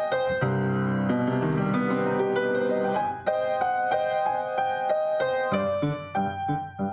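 Upright piano being played: a quick melody over the left hand, with a deep low chord sounding about half a second in, and short detached bass notes under the tune in the last second or so.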